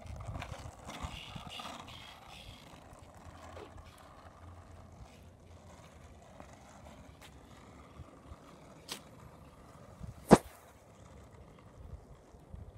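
Skateboard wheels rolling on asphalt as the rider pushes along with one foot, the rumble fading as the board rolls away. A sharp click about ten seconds in is the loudest sound, with a fainter one just before it.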